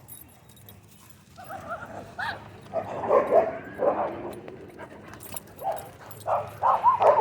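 Dogs barking and yipping in repeated short bursts, starting about a second in and growing more frequent near the end.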